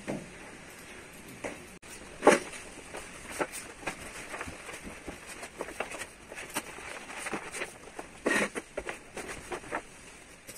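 A roll of carbon-fibre vinyl wrap film being handled and unrolled over a car's metal roof: scattered rustles, crackles and taps, with a sharp knock about two seconds in and a louder rustle around eight seconds.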